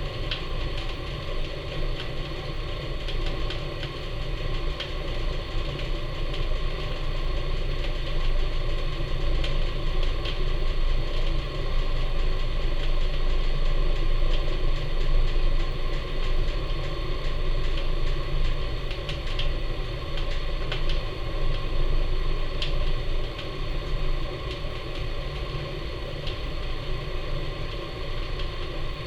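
Seasoned wood fire burning in the firebox of a Napoleon model 150 wood-fired furnace, a steady rumble of draft with scattered crackles and pops. The ash pan door is open for maximum draft while the fire builds.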